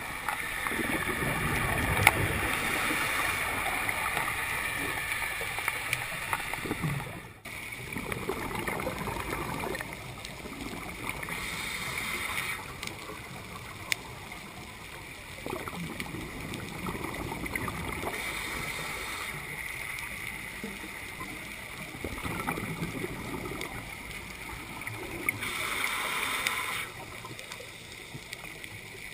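Scuba breathing heard underwater through a camera housing: regulator exhaust bubbles gurgle in swells about every seven seconds over a steady underwater hiss.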